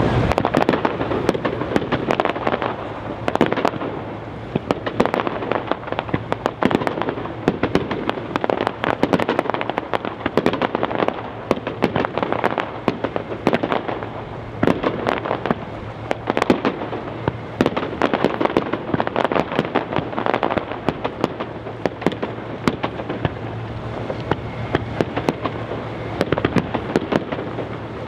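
Professional fireworks display: aerial shells bursting in rapid succession, a dense, unbroken run of sharp bangs and pops, many a second.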